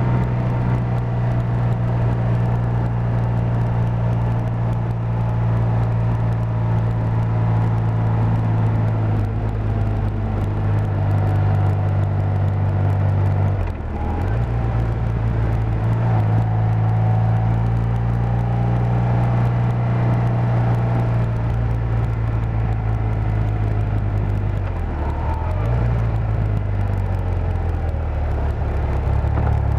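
BMW airhead motorcycle's R80 air-cooled flat-twin engine running under way at steady revs. The engine note drops sharply about halfway through, dips again a little later and climbs near the end.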